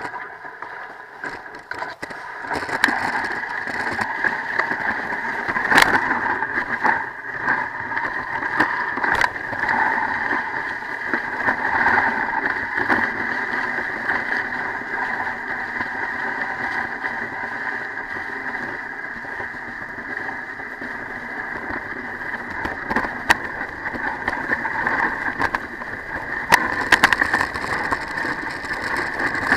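Sled runners sliding and scraping over packed snow at speed in a steady hiss, with a few sharp knocks as the sled hits bumps in the track.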